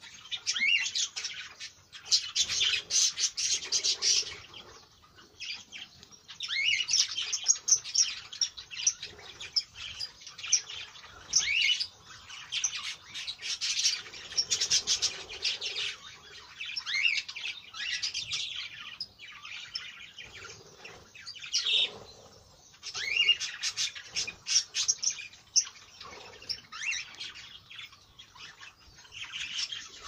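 A flock of budgerigars and cockatiels chattering and chirping in bouts of a few seconds each, fast high twittering mixed with short rising call notes, with quieter gaps between the bouts.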